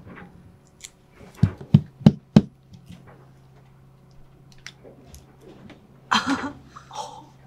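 A few sharp knocks of hard objects, four close together about a second and a half in, over a low steady hum.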